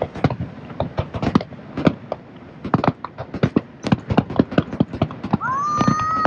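Fireworks bursting: a rapid, uneven string of sharp bangs and crackles from gold aerial shells. Near the end a high tone rises and holds for about two seconds over the bangs.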